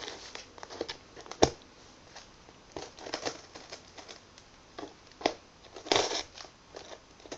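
Scissors cutting and scraping at the packing tape of a cardboard box: scattered clicks and short scratchy rustles, with a sharp snap about a second and a half in and a longer rustle about six seconds in.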